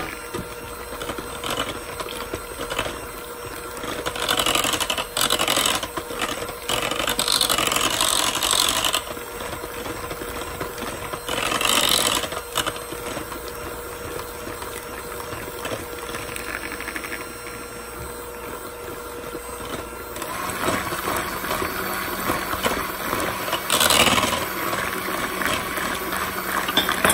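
KitchenAid electric hand mixer running at low speed, its beaters working flour into a batter of butter and eggs. The motor hum is steady, with several louder stretches in the first half and near the end. The pitch of the hum drops about two-thirds of the way through.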